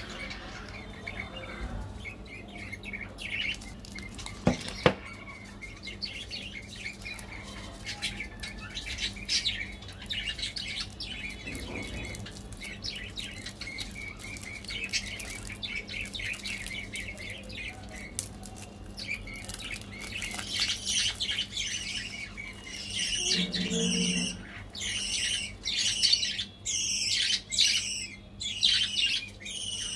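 Crinkling of a mini Snickers bar's foil-lined plastic wrapper as it is twisted open and peeled off by hand, a dense high crackle that grows louder and choppier in the last third. A single sharp tap about five seconds in.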